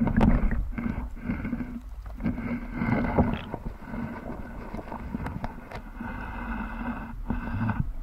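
Muffled mechanical hum and rumble heard through an underwater camera, coming in uneven start-stop stretches of about half a second to a second, with scattered knocks.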